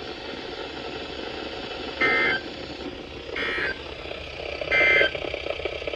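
Emergency Alert System SAME end-of-message code over weather radio: three short buzzy two-tone data bursts, a little over a second apart, over a steady radio hiss. It marks the end of the severe thunderstorm warning broadcast.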